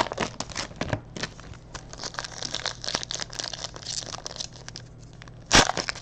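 Trading-card pack wrappers crinkling and tearing as packs are opened and cards handled: an irregular run of crackles, with a louder sharp rustle near the end.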